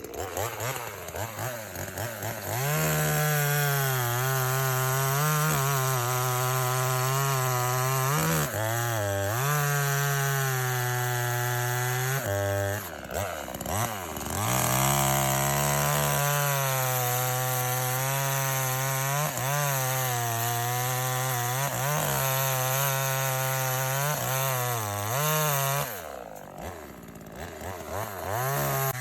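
Cx1202E chainsaw running at high revs while cutting wood. The pitch sags and recovers several times, drops to a low idle about 26 seconds in, and picks up again near the end.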